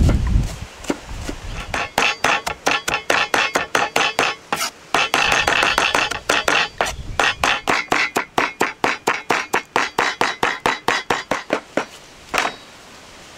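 Large kitchen knife rapidly chopping fresh dill and parsley on a wooden cutting board: quick, even knocks of the blade on the board, about four to five a second, with a short break in the middle. The chopping stops near the end after one last knock.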